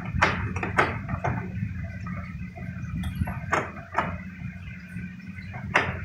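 Sharp knocks and taps on the back of a refrigerator, three in quick succession, then a pause, then more, over a steady low hum.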